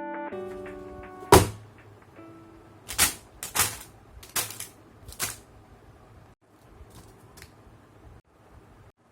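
Background music fading out, then a handful of sharp plastic clicks and knocks, five loud ones over about four seconds and two faint ones later, from the model kit being handled.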